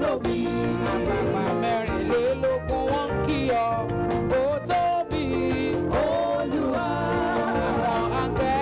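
Gospel music: a voice singing long notes with wavering, sliding pitch over steady instrumental backing.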